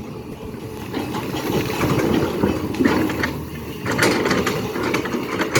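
SANY excavator working, its diesel engine running steadily with scattered metallic knocks and clanks, which come thicker about four seconds in.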